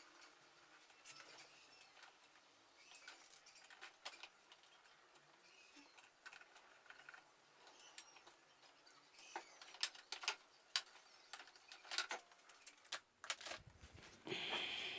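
Faint clicks, taps and rattles of a disassembled electric fan and tools being handled, sparse at first and busier in the last third, with a louder rustle near the end.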